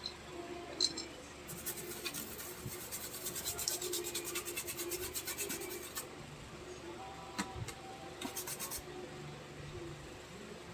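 Rapid scratching strokes on a hard surface, several a second, for about four seconds, then a shorter burst of the same strokes a couple of seconds later.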